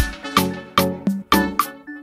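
Background music: an upbeat tune of short, sharp notes on a steady beat, about two and a half notes a second.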